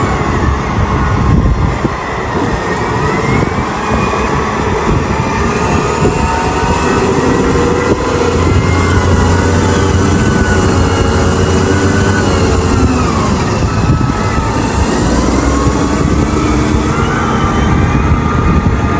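Caterpillar 990 wheel loader's V12 diesel engine running hard while it dumps, digs and lifts coal, its pitch rising and falling as the operator works the throttle. A high whine climbs and then drops away in the middle.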